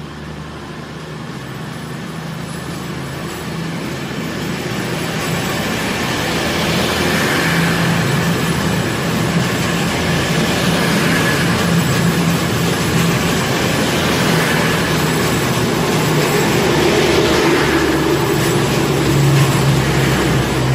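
East Midlands Railway Class 222 Meridian diesel multiple unit pulling out and passing close by. Its underfloor diesel engines run under power as the coaches roll past, and the sound grows steadily louder.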